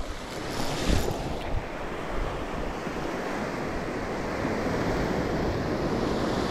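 Shorebreak surf washing up the beach around the wader's feet, a steady rush of foaming water that swells slightly louder, with a couple of short splashes about a second in.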